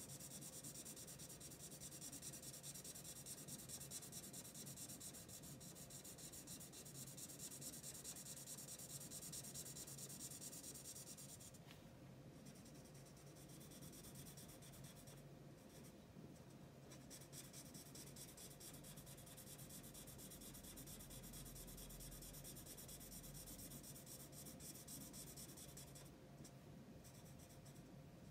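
Faint scratching of a marker pen's nib stroking across paper as a page is coloured in.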